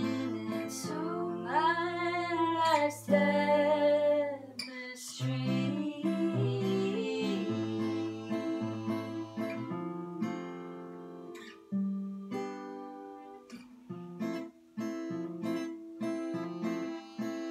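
Acoustic guitar playing a steady picked and strummed accompaniment. Female singing with a wavering pitch rises over it in the first few seconds, and the guitar goes on mostly alone later.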